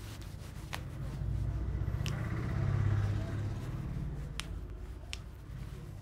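Low engine rumble of a passing vehicle, swelling to its loudest about three seconds in and then fading. Four sharp clicks sound over it: finger joints cracking as the hand is worked.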